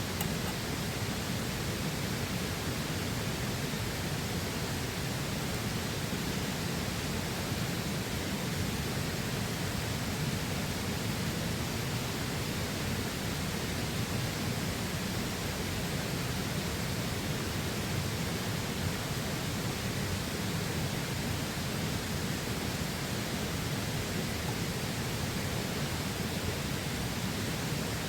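Flowing river water, a steady, unbroken rush.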